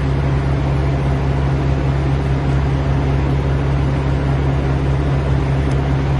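Vehicle engine idling with a steady low hum, unchanging throughout.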